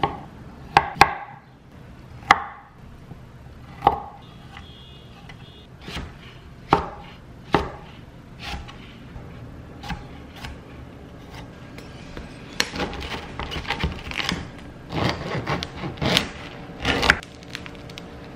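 Chef's knife slicing radishes on an end-grain wooden cutting board: sharp knocks of the blade meeting the board, spaced about a second apart at first, then quicker, denser chopping in the second half.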